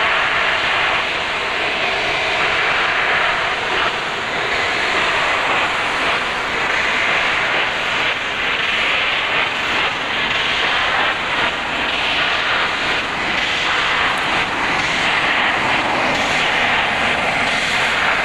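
Steam train noise from the Picnic Train hauled by D59 class steam locomotive 5917: a loud, steady rushing sound with no clear exhaust beat.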